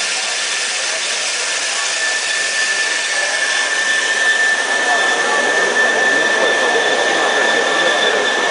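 Dual-column band saw cutting through a bundle of thick-walled seamless tubes: a steady high whine over a hissing machine noise that grows louder and fuller about halfway through.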